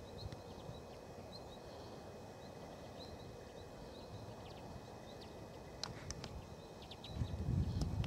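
Common redpolls calling: many faint, short, high twittering notes over the first half. A few sharp clicks come near the six-second mark, and a low rumble comes near the end.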